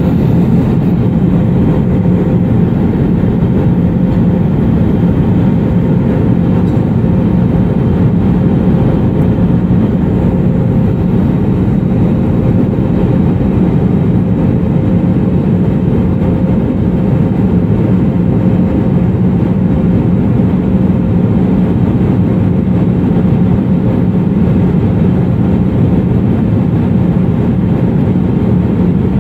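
Cabin noise of an Airbus A320neo in flight: the engines and airflow make a loud, steady rumble with a constant low hum, unchanging throughout.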